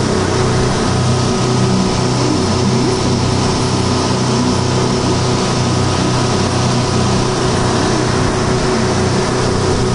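A speedboat's engine running steadily at cruising speed, heard from the deck as an even low hum, mixed with a steady rush of water along the hull.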